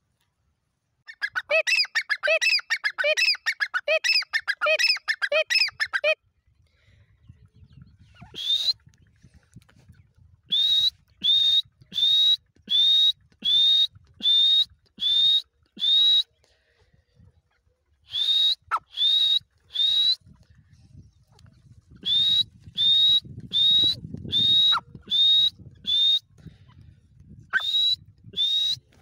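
Grey francolins (titar) calling. First comes a fast run of harsh, repeated notes for about five seconds. After a pause there are bouts of loud, short whistled notes, each rising in pitch, about one a second.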